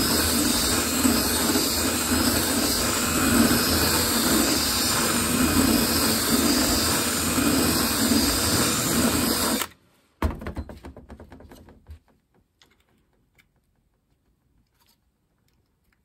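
Handheld rotary tool spinning a carbide burr, grinding out the remains of an old bulb socket from a metal lamp housing to open the hole for a new socket. It runs steadily and stops abruptly about ten seconds in, followed by a few quiet knocks.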